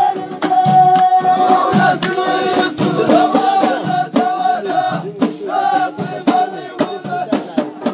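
Ahidous performance: a group chanting together over large frame drums and hand claps beating a steady rhythm.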